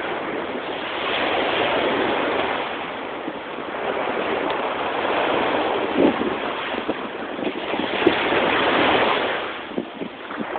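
Ocean surf washing onto a beach, a steady rush that swells and eases every few seconds.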